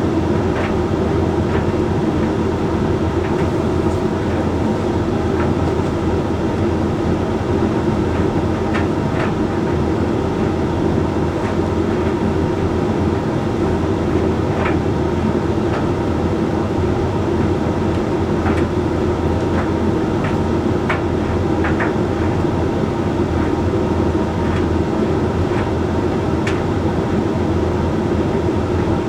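Hoover Link X Care condenser tumble dryer running mid-cycle on its Whites program: a steady hum of the drum and fan, with occasional light clicks.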